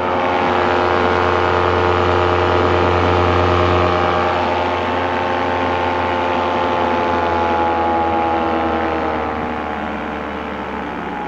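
Paramotor engine running steadily at high power in a climb, its pitch and loudness easing down a little in the last few seconds as the throttle comes back. Freshly carburettor-tuned, it runs smoothly.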